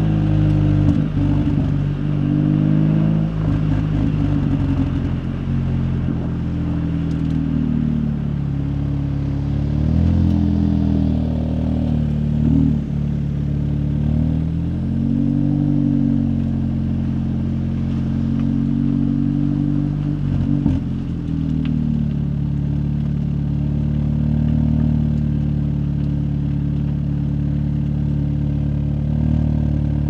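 Audi S3 8V's turbocharged 2.0-litre four-cylinder, stage 2 tuned with a cold air intake and downpipe, running at low revs with its pitch rising and falling a little under light throttle at low speed. A few brief clatters come through near the start and about two-thirds of the way in.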